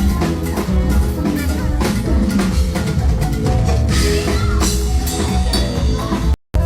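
Cumbia band music: an instrumental passage carried by drum kit, bass and percussion with a steady beat. The sound cuts out for a split second near the end.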